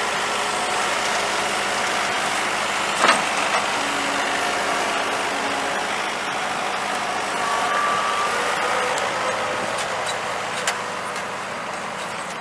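An engine running steadily, with a sharp knock about three seconds in and a smaller click near the end.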